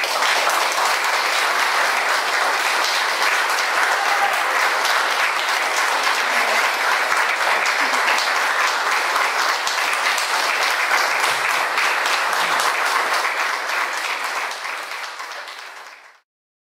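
Audience applauding, a dense steady clapping that eases off over the last couple of seconds and then cuts off suddenly.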